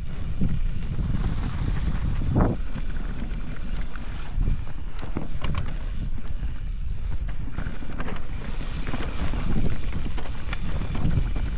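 Wind rushing over the microphone of a chin-mounted action camera during a mountain-bike descent, with the rumble of tyres on the trail and a few short knocks and rattles from the bike over bumps.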